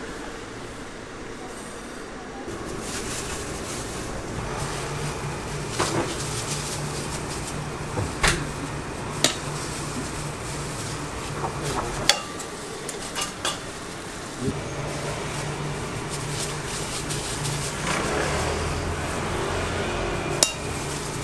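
A metal spoon clinking several times against a stainless steel tray of brown-sugar filling, the clinks sharp and spread out, over a steady low hum and background noise.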